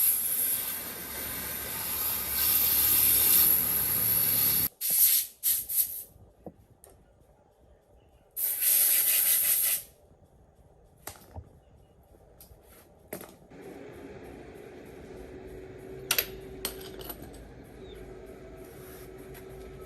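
Hissing spray in two bursts, the first lasting several seconds and the second about a second and a half, with scattered clicks and knocks between and after.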